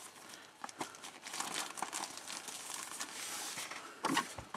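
Clear plastic bag crinkling and rustling as a decal sheet is handled and slid out of it, with a louder crackle about four seconds in.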